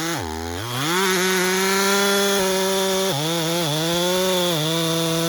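Stihl 044 two-stroke chainsaw running at full throttle through wood. Its pitch drops sharply as it bogs under load about a second in, then dips again several times in the middle. It is running a semi-chisel chain with the rakers filed down too far, which makes the chain grabby and hard on the saw.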